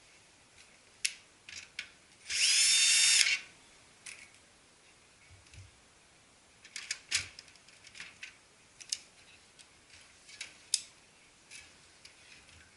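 A small power screwdriver runs for about a second, its whine rising at the start and then holding steady. Scattered sharp clicks and knocks of copier parts being handled come before and after it.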